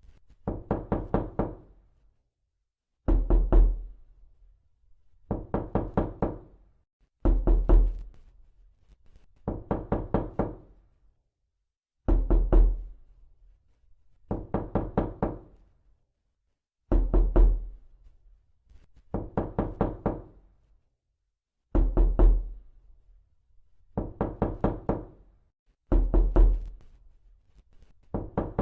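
Repeated knocking: bursts of four or five quick, ringing knocks about every two seconds in an even, looping pattern. Every other burst has a heavier, deeper thud.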